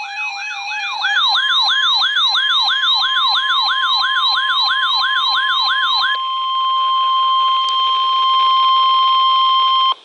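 Weather radio receivers sounding their alerts: a stepped two-pitch beep ends about a second in, and a warbling siren-like sweep repeats about three times a second until about six seconds in. Under them, and then alone for about four seconds, runs the steady 1050 Hz NOAA Weather Radio warning alert tone that announces a warning. It cuts off abruptly at the end.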